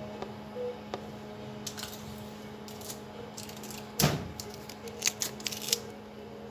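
Handling noise of objects being set in place: light clicks and rattles, with one louder knock about four seconds in followed by a quick run of clicks, over a steady low electrical hum.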